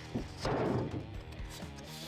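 Background music, with a short dull thud about half a second in as a large rusty steel sheet is laid down flat.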